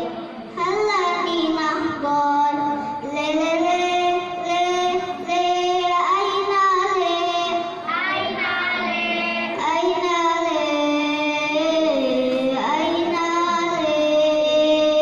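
Children of a marawis group singing together, long held notes that slide up and down between pitches, with a short break just after the start.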